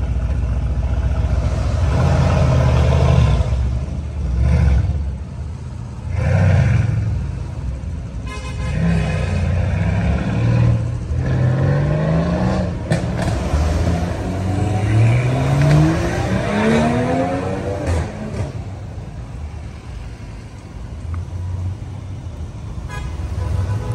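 Several cars pulling away one after another, their engines revving up in repeated rising sweeps of pitch as each accelerates off.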